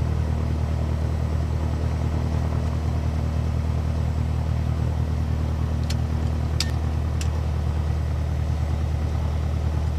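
Light aircraft's piston engine running steadily at low power, a low even drone. Three short clicks come about six to seven seconds in.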